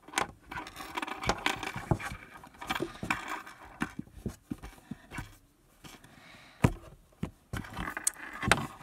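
Fingers squeezing and rubbing a foam squishy held close to the microphone: irregular scrapes, rustles and clicks, with a sharp knock about three-quarters of the way through.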